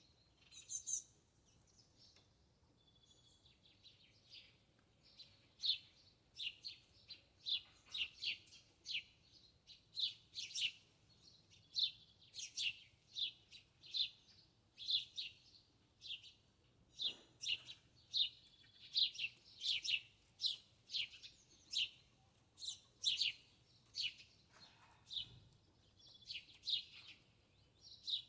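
A small bird chirping over and over, short high chirps at about one to two a second.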